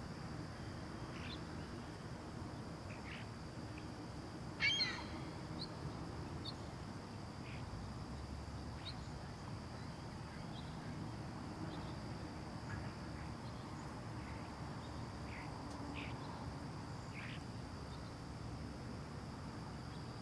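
Outdoor residential ambience: small birds chirping now and then over a low, steady rumble. One louder call of several quick notes comes about five seconds in. A thin, steady high-pitched tone runs underneath.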